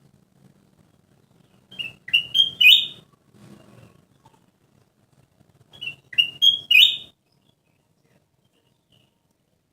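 Kutilang emas, a bulbul, singing two short phrases about four seconds apart. Each phrase is a quick run of whistled notes climbing in pitch, with the last note the loudest.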